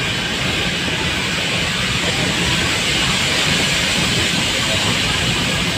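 Nilgiri Mountain Railway toy train running, heard from inside the carriage: a steady rushing noise of wheels on the rails with a low rumble underneath.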